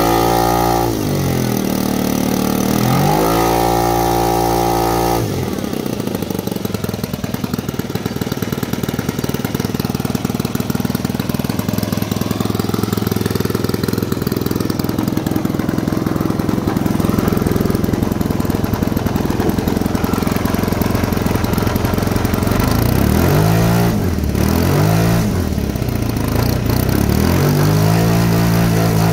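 Saito 125 four-stroke glow engine running on a model biplane, throttled up and down at the start, then held at a steady high speed, then throttled down and back up again near the end. It is swinging a propeller that is too large for it and running on 5% nitro fuel.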